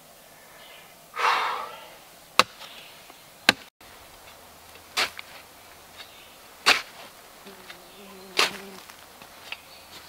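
A short rushing noise about a second in, then about six sharp, single knocks spaced a second or two apart.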